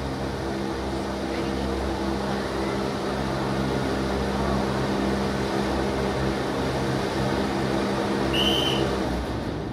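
Giant stage wind-machine fan blowing hard: a steady rushing drone with a low hum of several steady tones from the motor and blades, cutting off near the end. A short high chirp sounds just before it stops.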